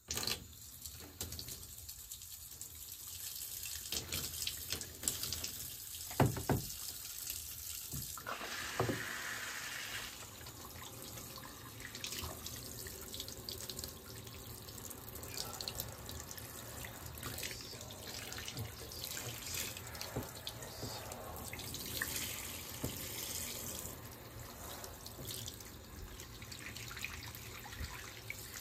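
Water running from a handheld shower head, spraying steadily onto a cat's fur and the bathtub floor. The water comes on suddenly at the start, with a couple of brief knocks about six and nine seconds in.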